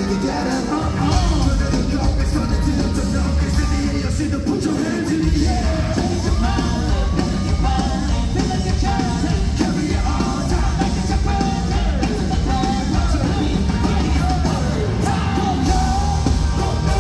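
Live K-pop concert music over arena speakers: a heavy, driving beat with strong bass, sung vocals and shouted lines, heard from the audience.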